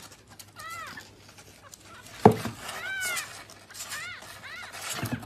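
Kitten mewing: a series of short, high mews, each rising and falling in pitch. A sharp knock about two seconds in is the loudest sound.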